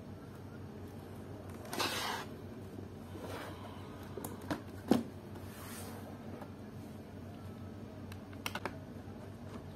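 Plastic laptop casing being handled and turned over: a scraping slide about two seconds in and a sharp knock about five seconds in, then three quick small clicks near the end as a precision screwdriver engages a screw in the bottom cover.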